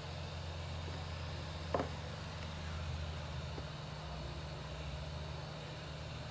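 Hot air rework gun's blower running with a steady low hum while solder is reflowed on a replacement BIOS chip, with a single sharp click about two seconds in.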